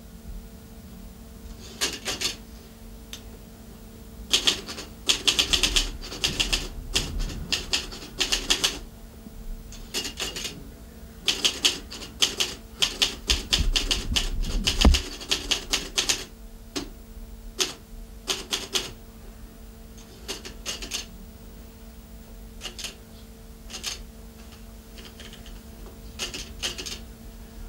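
Typing on a portable typewriter: runs of quick keystrokes in irregular bursts with short pauses between, busiest in the first half, over a faint steady hum.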